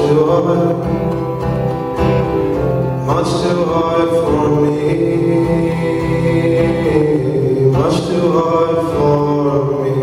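A man singing a folk song live while playing an acoustic guitar, with long held notes over the guitar accompaniment.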